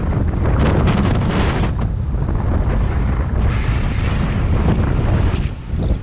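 Heavy wind buffeting the microphone of a road bike descending at speed, a loud, dense low rumble that drops off briefly near the end.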